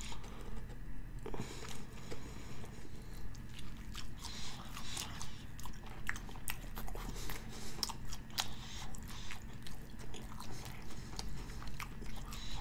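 A person chewing a mouthful of bacon steak burger in a steady rhythm of about two to three chews a second, with crisp crunching and small wet mouth clicks.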